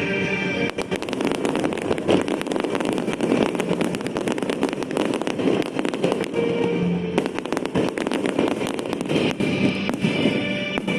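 Fireworks crackling and popping in rapid dense volleys, thinning out around seven seconds and picking up again near the end, with music playing underneath.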